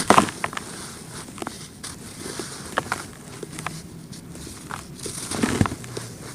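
Clumps of dry red dirt being crumbled, giving irregular crisp crackles and crunches. The loudest crunches come right at the start and again about five and a half seconds in.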